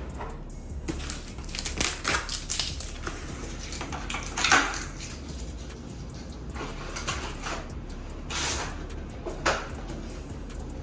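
Hard plastic parts clicking and knocking as a toner cartridge is picked up and handled, with a few short scrapes, the loudest about four and a half seconds in.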